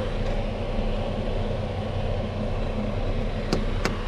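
Diesel engine of a large semi-trailer truck running close by, a steady low rumble heard from inside a van. Two sharp clicks near the end.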